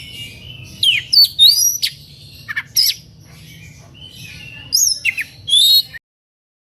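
Oriental magpie-robin singing a fired-up, aggressive song: a varied run of loud whistled notes with quick rising and falling glides and short sharp calls between them. The song stops abruptly about six seconds in.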